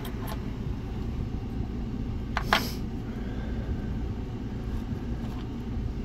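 Steady low background rumble, with one short rattle about two and a half seconds in as padlocks are handled.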